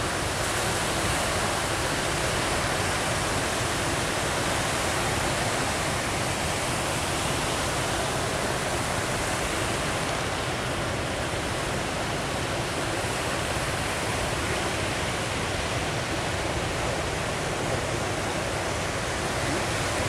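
Ocean surf breaking close by: a steady, even rush of water with no single wave crash standing out.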